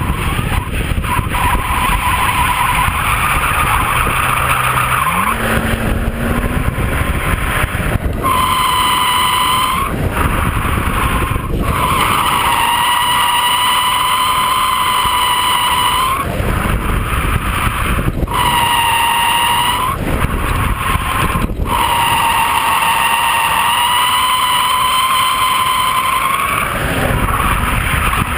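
BMW E36 328i's 2.8-litre straight-six running hard through a drift, its tyres squealing in several long bursts of a few seconds each. Wind noise lies on the outside-mounted microphone.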